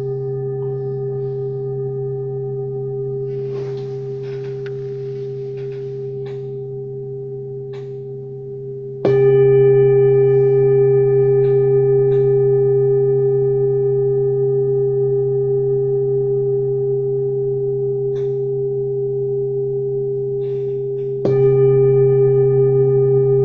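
Singing bowl ringing with a long, slowly fading sustain of several steady tones. It is struck again about nine seconds in and again near the end, each strike bringing the ring back up suddenly. This is the sound used for chakra healing.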